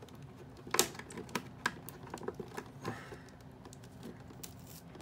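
Irregular clicks and ticks of fingers handling a doll box's clear plastic window and cardboard tabs, with one sharper click a little under a second in and a brief rustle of plastic about three seconds in.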